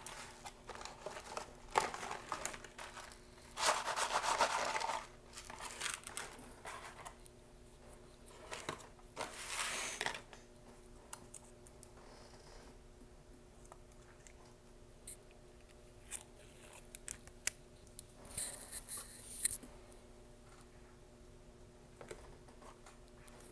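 Paper and plastic McDonald's food packaging being handled and opened, with crinkling and tearing in irregular bursts, the loudest about four seconds in, and soft clicks and rustles between them.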